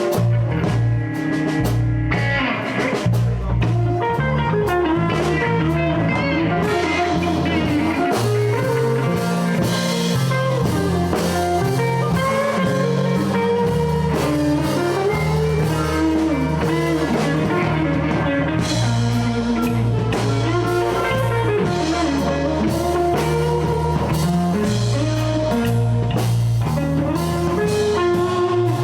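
Live blues band playing an instrumental passage: a lead line of bent, sliding notes over bass guitar and drum kit.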